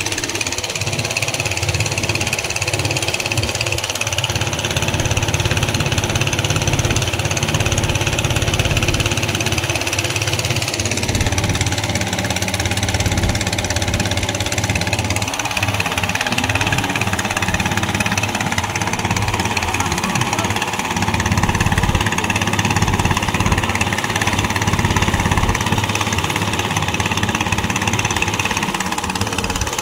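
Small fishing boat's motor running steadily while under way, mixed with the hiss of wind and rushing water.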